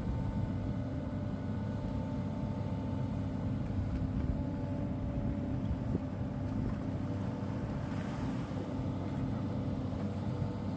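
Engine running steadily: a low, even hum with no change in speed.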